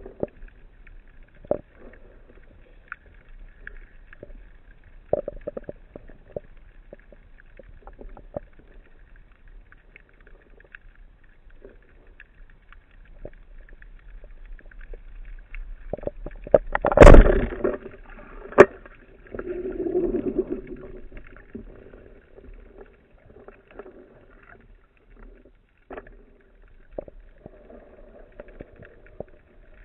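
Underwater ambience picked up through a camera housing on a speargun: scattered sharp clicks over a faint steady hiss. About halfway through comes one loud thump and rumble, then a softer rumble.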